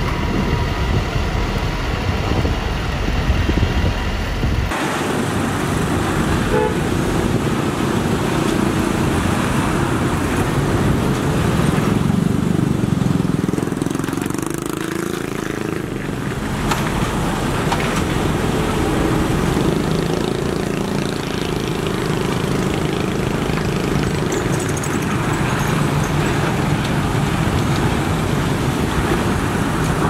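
A MATADOR MC26M single-drum road roller's diesel engine running for the first few seconds. After that comes the sound of a roadside dig: a hydraulic excavator's diesel engine working among passing motorbikes and trucks, with horn toots.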